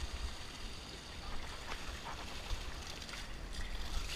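Shallow river water sloshing and splashing, under a low rumble of wind on the microphone, with a few light knocks.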